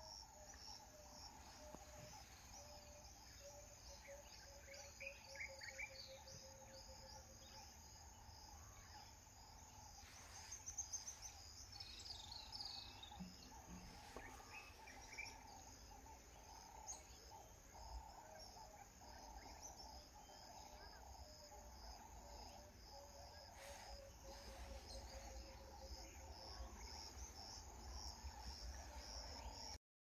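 Faint savanna ambience: insects chirring steadily, with scattered short bird calls, a few of them falling in pitch. A low, evenly pulsed trill sounds twice, once near the start and again later, over a soft low rumble.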